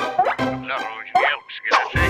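Cartoon soundtrack: background music with several short vocal noises that slide up and down in pitch.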